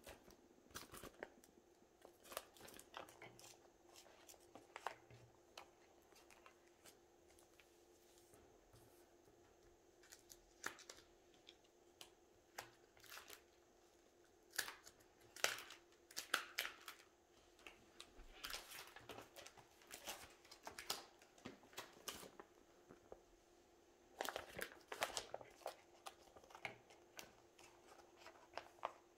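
Plastic photocard binder sleeves crinkling and crackling as cards are slid out of and into their pockets, in scattered clusters of small clicks and rustles, over a faint steady hum.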